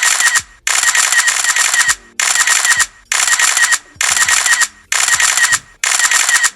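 Camera shutter firing in rapid bursts: about seven runs of quick clicks, each under a second or so, with short gaps between them.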